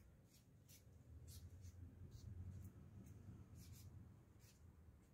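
Near silence: faint room tone with a low rumble and scattered soft, high ticks.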